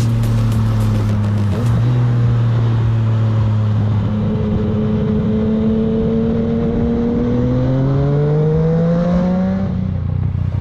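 Yamaha MT-09 SP's 847 cc inline-three engine running through an Akrapovič titanium Racing Line exhaust at road speed. It holds a steady note for the first few seconds, then its pitch climbs smoothly for about two seconds as the bike accelerates.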